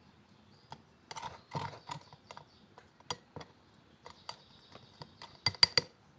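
Light, irregular clicks and small knocks of kitchen utensils as blended kencur pulp is squeezed through a strainer, with a quick run of sharper clicks near the end.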